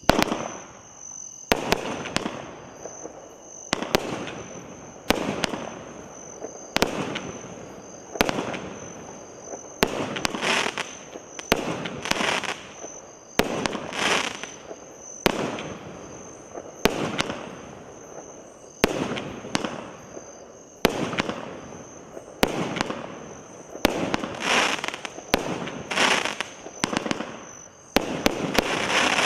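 Brain Sneeze 500-gram multi-shot firework cake firing shot after shot, about one a second: sharp bangs, some followed by a hissing crackle as the crackling-rain and glitter effects burn.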